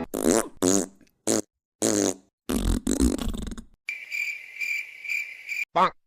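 A run of wet fart noises: about five short, wavering blasts, the last one drawn out. These give way to about two seconds of high, pulsing chirping, and one more brief fart sound comes near the end.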